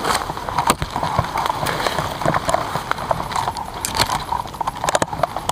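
Leafy brush rustling and scraping against the gear, with scattered irregular clicks and light knocks.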